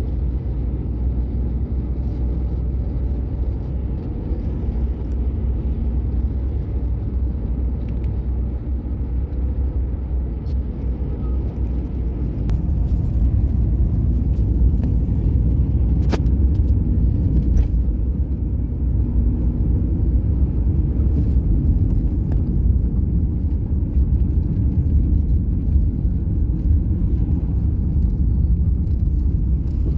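Car driving along a road: a steady low rumble of engine and tyre noise, getting a little louder about twelve seconds in, with a few faint clicks.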